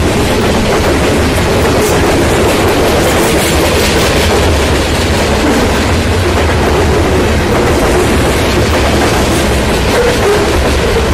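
Freight train's covered hopper cars rolling past at close range: a steady, loud rumble and clatter of steel wheels on the rails.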